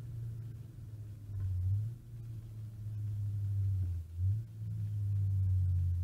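Renault Clio RS R27's 2.0-litre inline-four engine heard from inside the cabin, a steady low drone whose pitch and loudness shift briefly twice, about a second and a half in and again about four seconds in.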